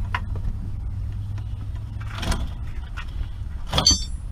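Steady low rumble with scattered faint handling clicks, a short rustle about halfway, and a brief ringing metallic clink of a hand tool on metal near the end.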